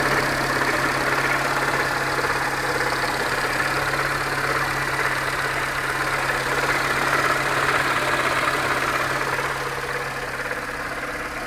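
Peugeot 307 1.4-litre four-cylinder engine idling steadily with a knock in time with the revs. The knock is still there after a full timing belt kit and with the crankshaft pulley removed, so neither is its cause.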